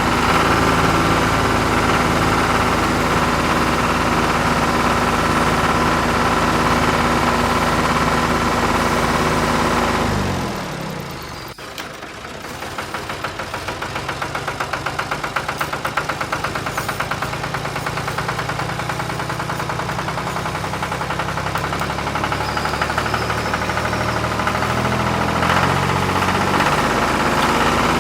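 Engine running steadily, winding down with falling pitch to a near stop about ten seconds in, then restarting with a fast knocking rhythm and settling back into a steady idle.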